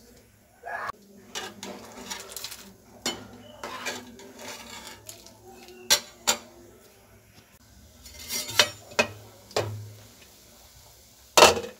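Cookware being handled: a glass pan lid, a metal slotted spoon and a strainer over a pot knocking and clinking in scattered strokes, with a few sharp clinks and the loudest knock near the end.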